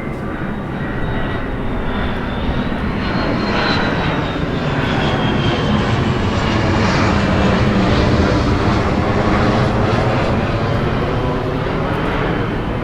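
Military jet flying over, its engine noise swelling to a peak about eight seconds in and then easing off, with a high whine that rises and then falls in pitch as it passes.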